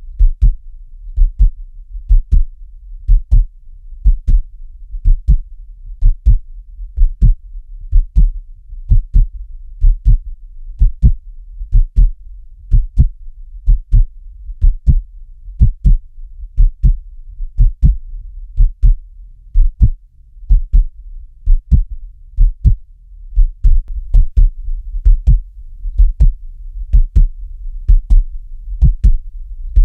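Human heartbeat sound: a steady, even rhythm of deep lub-dub double thumps, about one beat a second.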